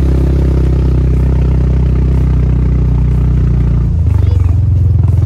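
UTV engine running with a steady low drone; its note changes about four seconds in.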